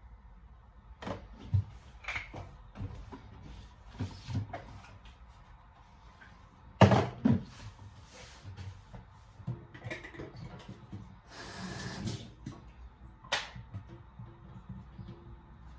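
Kitchen clatter of items being handled and set down on the counter: a string of irregular knocks and clicks, the loudest about seven seconds in.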